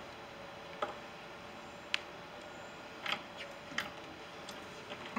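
Faint, irregular sharp clicks and light knocks of hand tools at work, about one a second, over a quiet steady background.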